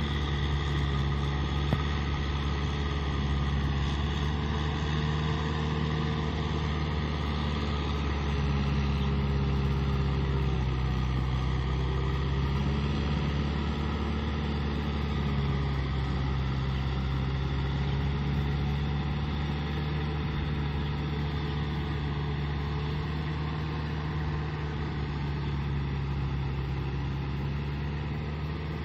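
Kubota M6040 SU tractor's four-cylinder diesel engine running steadily under load as it pulls a rotary cultivator through wet rice-paddy mud. The engine note wavers gently up and down as the load changes.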